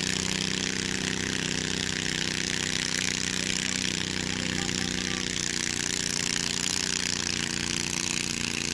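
Garden tractor engine running steadily at high throttle under heavy load while pulling a weight-transfer sled.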